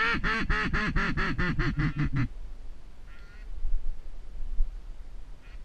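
A rapid run of about a dozen loud duck quacks, the descending series of a mallard hen's call, cutting off a little over two seconds in. Two fainter quacks follow later.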